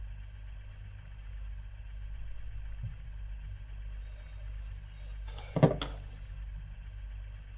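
A steady low hum with a faint hiss over it, and one brief sharp sound a little over five seconds in, as the handheld voice recorder comes away from the mouth.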